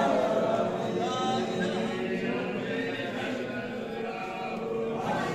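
A crowd of men's voices, several chanting together in drawn-out notes over overlapping talk.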